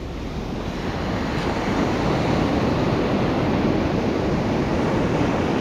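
Surf on a sandy beach: waves washing in, swelling over the first couple of seconds and then holding steady, with wind on the microphone.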